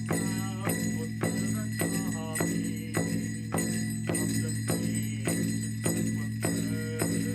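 Large Plains powwow drum struck in a steady, even beat, about one and a half to two strikes a second, each strike ringing on under a steady sustained hum.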